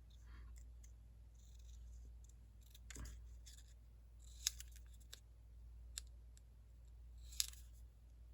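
Scissors snipping paper: a handful of short, separate snips about a second apart, cutting out a small shape.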